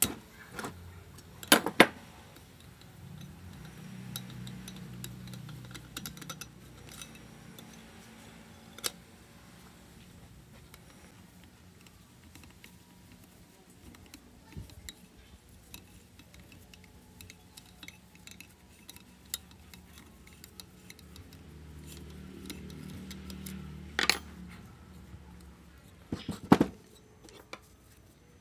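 Metal hand tools clinking and knocking against a chainsaw's engine parts as it is taken apart: a few sharp metal knocks near the start and two more near the end, with light clinks between. A low hum swells and fades twice in the background.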